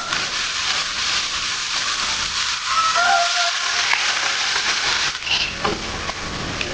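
A steady hissing noise, with a brief high squeak about three seconds in.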